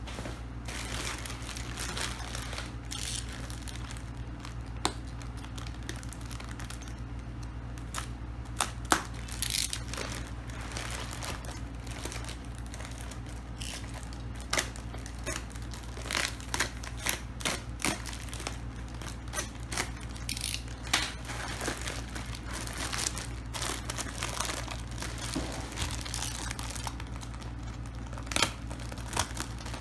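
Packaging being handled and opened: irregular crinkling and rustling of plastic wrap and cardboard with scattered sharp clicks and knocks, over a steady low hum.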